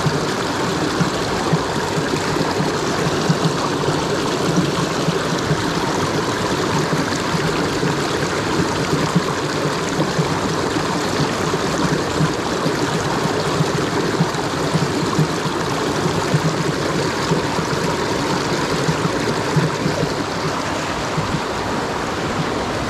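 Small creek flowing steadily: an even, unbroken rush of running water.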